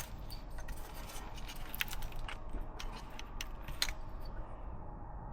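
Irregular light clicks and metallic clinks of hand tools and engine parts being handled while coil packs are removed, stopping about four seconds in.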